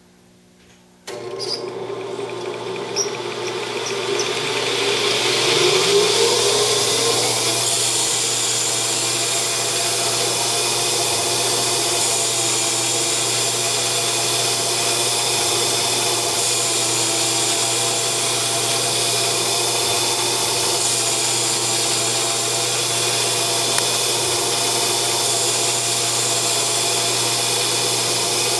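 Grizzly G0602 metal lathe under CNC control starting up about a second in, its spindle speeding up with a rising whine over the next few seconds, then running steadily while turning down an aluminium bar.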